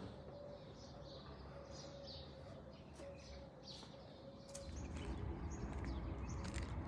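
Small birds chirping in quick, short calls over a faint steady hum. About two-thirds of the way in, a low rumble and a run of clicks join them.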